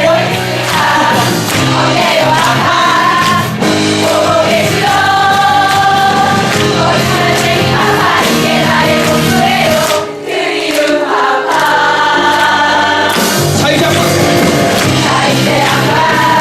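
A musical-theatre song sung live by several voices over instrumental accompaniment, with long held notes in two stretches and a brief break about ten seconds in.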